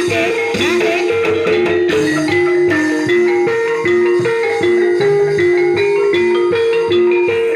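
Loud ebeg accompaniment music: a melody of struck pitched notes, each held briefly and changing several times a second, over a steady drum rhythm.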